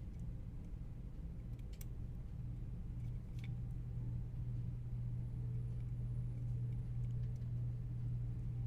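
A steady low hum throughout, with a few faint, sharp clicks of small plastic parts being handled during reassembly of a PS5 controller.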